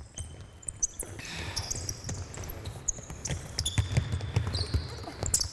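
A basketball being dribbled on a hardwood court in quick, irregular bounces, with short high-pitched squeaks of sneakers on the floor as the players cut and change direction.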